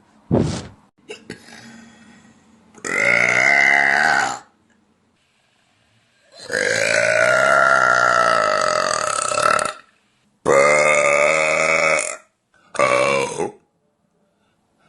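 A young woman burping loudly four times, drawn-out voiced belches, the longest lasting about three seconds. A short low thump comes just before the first burp, near the start.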